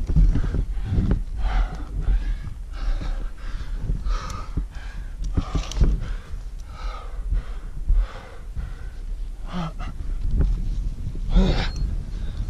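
A climber's heavy, labored breathing: quick deep gasps in and out about once a second, the hard breathing of climbing at about 6000 m with a 50 lb pack. A steady low rumble runs underneath.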